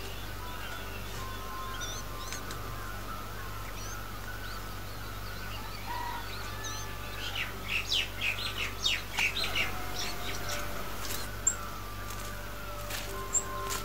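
Birds chirping over a steady background hum, with a run of rapid, harsh calls, about four or five a second, from about seven to ten seconds in. Two sharp clicks come near the end.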